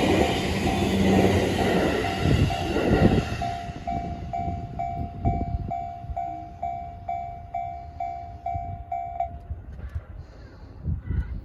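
A train passes over a Japanese railway level crossing for the first three seconds or so, wheels on the rails, while the crossing's electronic warning bell dings at about two strikes a second. The bell goes on after the train has gone and stops about nine seconds in.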